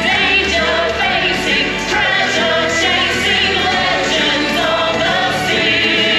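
Show music: several voices singing together over a recorded backing track with a low bass line.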